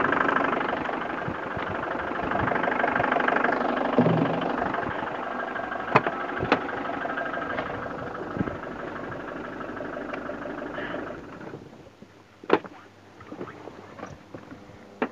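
Fiat Ducato camper van engine idling steadily, then switched off about eleven seconds in. A single sharp clunk follows about a second and a half later.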